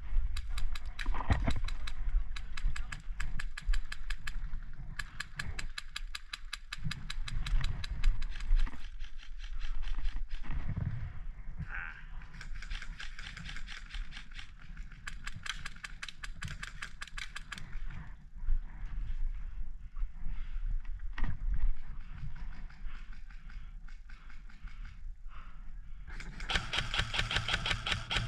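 Airsoft guns firing long strings of rapid, evenly spaced shots, heard as fast mechanical clicking that stops and starts, loudest near the end.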